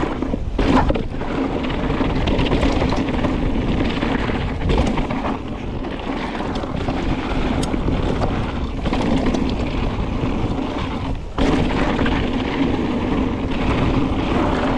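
Mountain bike riding fast over a dry dirt trail: tyres rumbling on the packed earth and stones, with wind rushing over the action camera's microphone. The noise drops out briefly a few times, most clearly about eleven seconds in, then comes back sharply.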